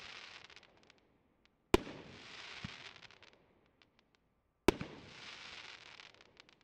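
Firework cake (Triplex TXB464 'Infinite', 48 mm shots) firing two single shots about three seconds apart, each a sharp bang followed by about a second of crackling hiss as the shell bursts, with the tail of the previous shot's crackle fading at the start.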